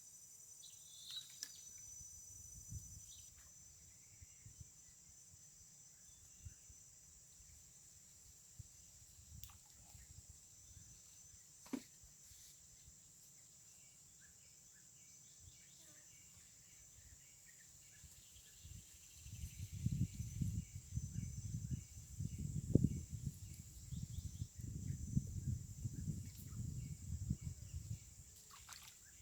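Steady high-pitched chirring of insects such as crickets. From about two-thirds of the way in, a louder low rumbling noise rises over it for several seconds and then fades.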